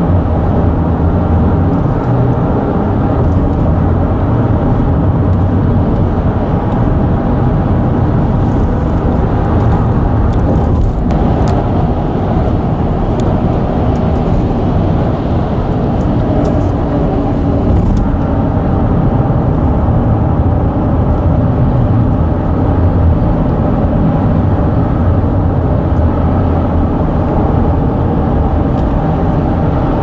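Steady road noise of a car driving on a concrete highway ramp, tyres humming on the pavement, heard from inside the cabin. The tone shifts slightly about a third of the way in and again past halfway, with a few faint clicks in between.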